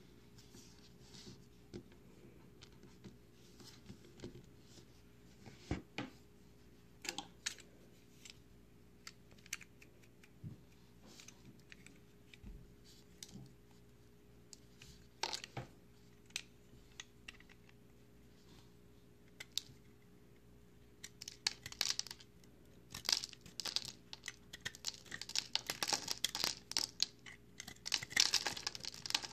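Bars of crumbly recycled soap made of pressed soap chips, handled with scattered light clicks and crackles at first. From about two-thirds of the way in, a utility knife blade cuts and shaves into the dry soap in a dense run of crunching, crackling strokes that grows louder near the end.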